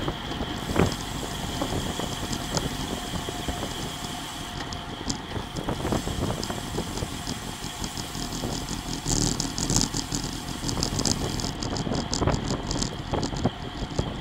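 Road bicycle riding at about 30 mph: wind rushing over the bike camera's microphone, with tyre noise on the asphalt and small rattles from the bike. In the middle the rider stops pedalling and coasts, and a run of rapid freewheel ticking is heard.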